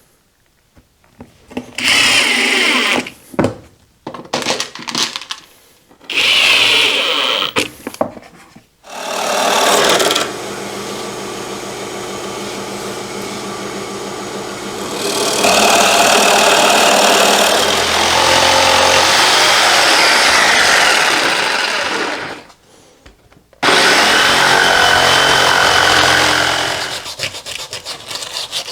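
A power tool running in short bursts, then in a longer steady run that grows louder partway through, stops, and starts again briefly near the end.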